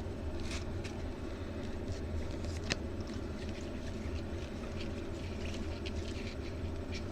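Faint scrapes and clicks of football trading cards being handled and slid off a stack, over a steady low hum, with one sharper click a little under three seconds in.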